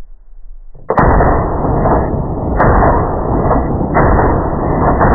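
PSL rifle firing with a Lantac Dragon muzzle brake: one sharp shot at the very start, then from about a second in a loud, dull, drawn-out blast sound that swells about once a second.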